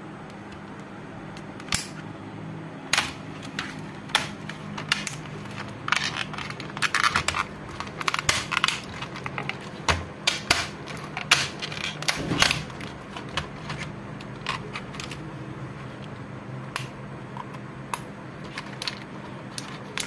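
Irregular sharp plastic clicks and snaps as a Lenovo ThinkPad T580's keyboard is prised up out of the palmrest and lifted free. The clicks come thickest in the middle, over a steady low hum.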